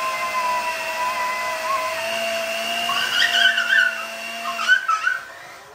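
Handheld electric mixer running with a steady motor whine, its beaters working through a thick cottage-cheese mixture; the motor stops about five seconds in.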